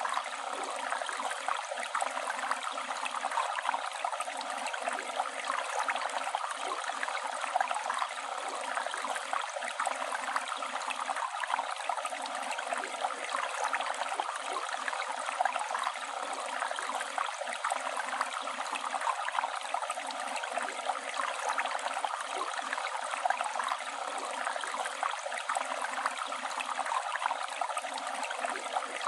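Flowing river water: a steady, even rush with small irregular gurgles.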